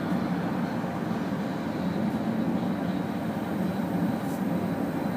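Steady road noise heard inside a moving car's cabin: an even rumble of tyres and engine that does not change.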